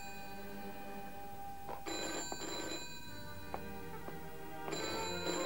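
Telephone ringing in double rings, two short rings close together, heard twice: about two seconds in and again near the end. Soft background music plays underneath.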